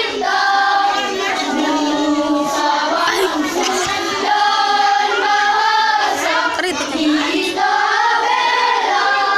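Children's choir singing a sustained melody, holding notes and moving between them without a break.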